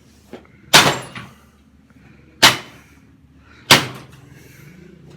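Three heavy blows struck on a lawnmower engine to break it apart, each a loud metallic bang with a short ringing tail, spaced about a second and a half apart.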